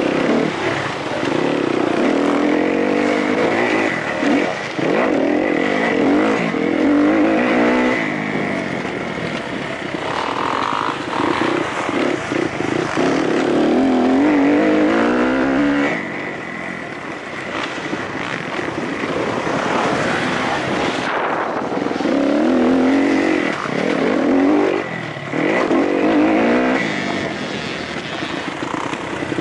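Kawasaki KX-F single-cylinder four-stroke motocross engine heard close up from on the bike while racing. It revs up in repeated rising sweeps through the gears and falls off when the throttle is shut, most clearly about 16 seconds in, over steady wind and track noise.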